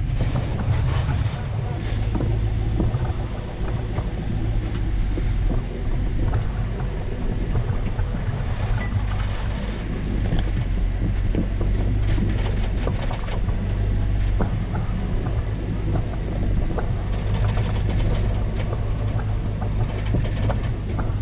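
Rock crawler's engine running steadily as the buggy climbs a steep rock face, with scattered ticks and knocks over it.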